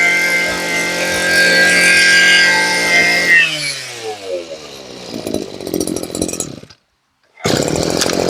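Maru 20 cc brush cutter engine running at high revs; about three seconds in the throttle is let off and the revs fall to an uneven idle before the sound stops. After a brief silence, engine noise returns loudly near the end.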